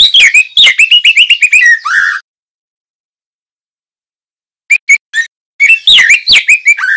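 Juvenile male white-rumped shama singing a quick string of whistled, chirping notes that glide up and down for about two seconds. After a pause of about two and a half seconds it gives a few short notes, then another burst of song near the end.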